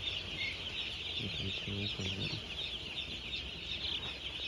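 A large flock of four-day-old broiler chicks peeping continuously, a dense mass of overlapping high chirps.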